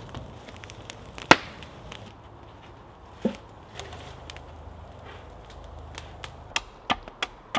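Wood fire crackling as the ends of log posts char in it, with one loud sharp crack about a second in. Then a dull wooden knock and scattered cracks as the charred posts are lifted out of the fire.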